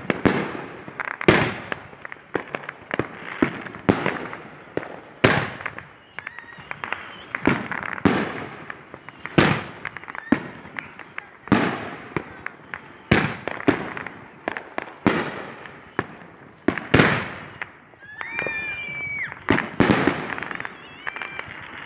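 Consumer firework cake firing a volley of aerial shells: a sharp bang every one to two seconds as each shell bursts, with a noisy hiss in between.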